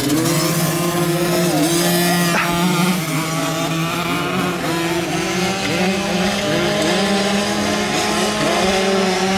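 Several youth dirt bikes' small engines running at once, their pitches rising and falling as riders rev and back off around the track, over a steady low drone.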